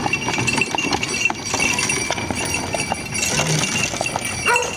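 Horse's shod hooves clip-clopping on an asphalt road at a walk as it pulls a buggy.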